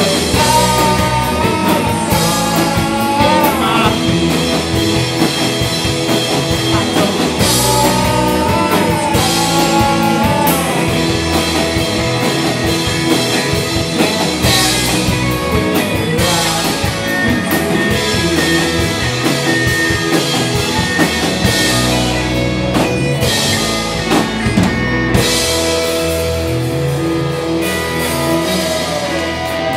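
Live rock band playing, with guitar over a drum kit with cymbals.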